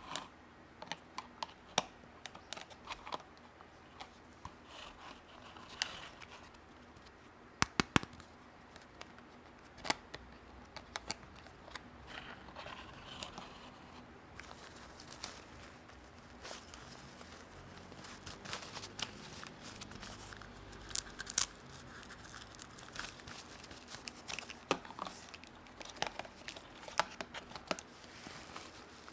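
Toy packaging and small plastic toy pieces being handled in an unboxing: crinkling and tearing of wrapping, with scattered sharp clicks and taps, including a quick double click.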